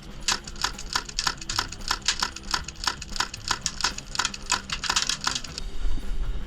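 An airsoft gun fires shot after shot, about five sharp pops a second, with no pause. The shots stop about five and a half seconds in.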